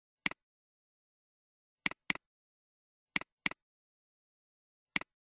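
Computer mouse clicks, each a sharp press-and-release click. There are six with dead silence between them: one near the start, a quick pair a little under two seconds in, another pair just after three seconds, and one near the end.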